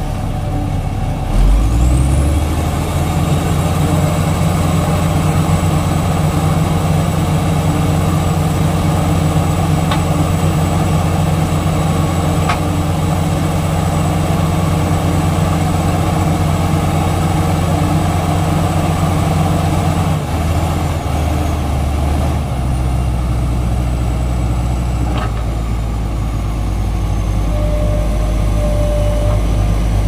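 Heavy diesel engines of a bogged Komatsu D85ESS bulldozer and a SANY SY215C excavator working under load to free the dozer from mud. About a second and a half in the engine revs up with a rising high whine and holds steady, then around two-thirds through it shifts down to a lower, deeper running.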